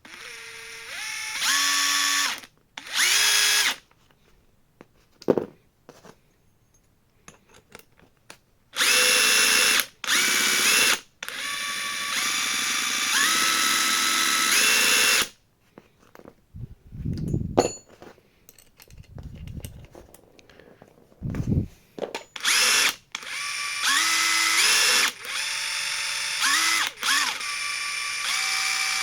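DeWalt DCF845 cordless impact driver motor run in a series of separate trigger pulls. In each burst the whine steps up in pitch as it speeds up, then holds steady until the trigger is released.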